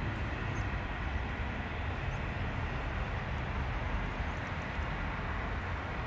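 Airbus A319 airliner's jet engines on landing, heard as a steady rumble with hiss.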